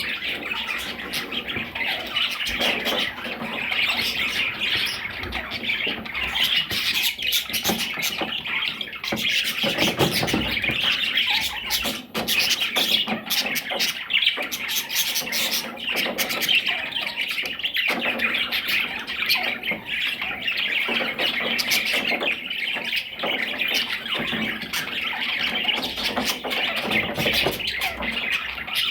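Parrots chattering, a steady stream of quick overlapping calls with no break.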